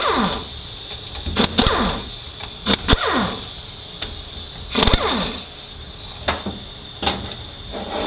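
The 10 mm stator bolts being taken out of a Ford 4R75W transmission's front pump one after another: about six sharp clicks, each followed by a short falling whir, over a steady high hum.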